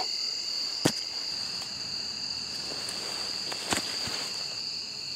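Steady high-pitched insect chorus, such as crickets in grass. Two sharp knocks come about a second in and again near four seconds in.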